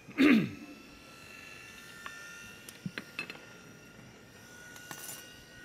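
Food processor motor running with a faint steady whine, mixing pasta dough after a little water has been added to make it less sandy, with a few light clicks. A short, louder sound with a falling pitch comes right at the start.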